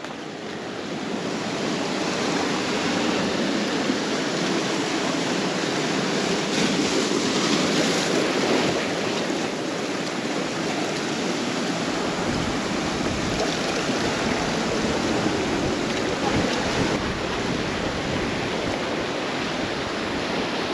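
Ocean surf breaking and washing up the beach, a steady rushing wash, with a low rumble of wind on the microphone joining from about halfway through.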